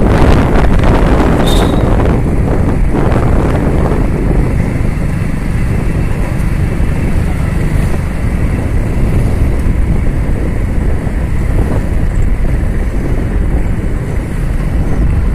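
Steady wind rush and engine and road noise while riding a motorcycle along a street, heaviest in the low end and loudest in the first few seconds.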